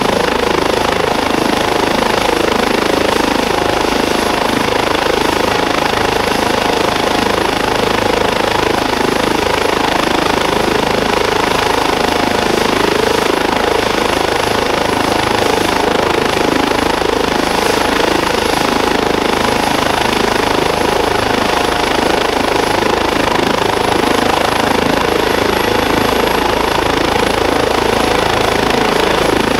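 Airbus H135 P3 helicopter, with twin Pratt & Whitney PW206B3 turboshaft engines, running steadily on the ground before take-off. The rotor noise is even and a thin high turbine whine sits over it.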